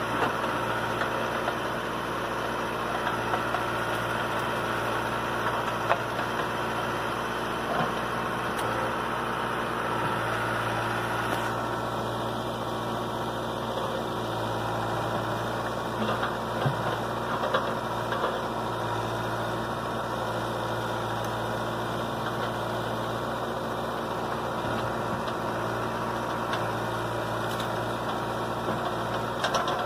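Caterpillar 416E backhoe loader's diesel engine running steadily as its backhoe arm works through brush, with a few short cracks over the drone.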